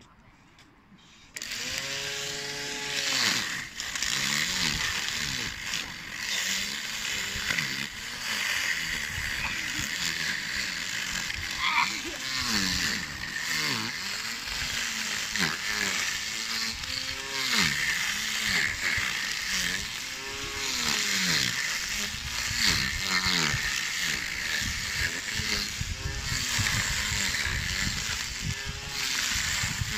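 Handheld grass trimmer starting up about a second in and cutting grass with its spinning head. Its motor whine repeatedly sags in pitch and recovers as the head cuts into the grass.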